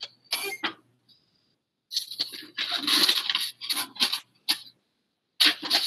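Handling noise: irregular rustling and light clinks as craft materials, among them sandpaper, are picked up and moved about, in several short spells.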